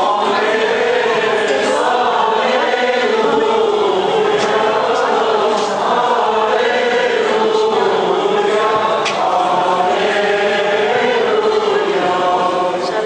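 Voices singing an Armenian church chant together, one melody of long held notes that slowly rise and fall. A few faint clicks and knocks sound over the singing.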